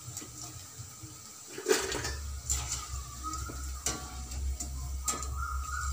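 A wire spider strainer clinks several times against a steel kadai while fried cauliflower pieces are scooped out of hot oil, which sizzles faintly. A steady low hum comes in about two seconds in.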